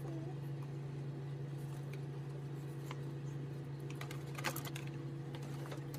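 Scattered light clicks and taps as a detachable tablet keyboard cover and its cardboard box tray are handled, with a small cluster of clicks just after the middle, over a steady low hum.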